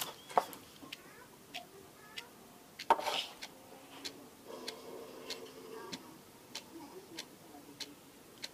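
A clock ticking steadily, a faint tick a little under twice a second, with a brief louder noise about three seconds in.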